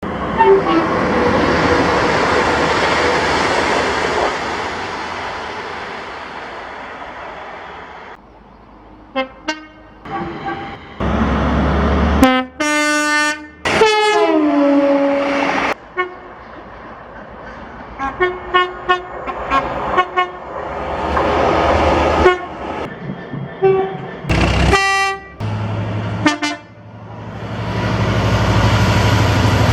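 Train horns sounding in a run of short clips: a train's rumble fading, then short and long horn blasts, one long blast dropping in pitch as the train passes, and another train's rumble building near the end.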